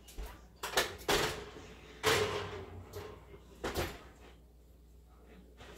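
An oven door being opened and shut as a metal waffle stick pan goes in to bake. There are a few clunks about a second in, a louder scraping clatter just after two seconds and another clunk near four seconds.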